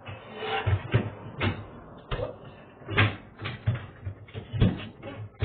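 A refrigerator being manhandled through a doorway: a series of irregular knocks and thuds as it bumps against the frame and floor.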